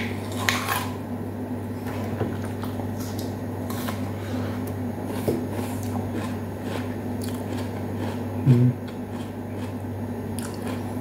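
Close chewing of a bite of a firm, juicy, unripe green stone fruit: scattered wet crunches and squelches from the mouth over a steady low background hum. A short low 'mm' sound comes about eight and a half seconds in.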